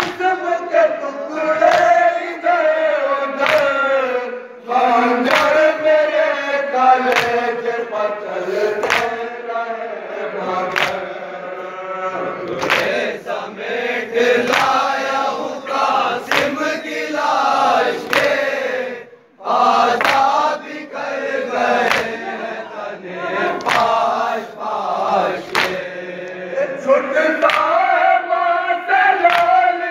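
A group of men chanting a nauha (Shia mourning lament) in unison, with sharp slaps about once a second keeping the beat, typical of matam chest-beating. The chant and the beat break off briefly once, then resume.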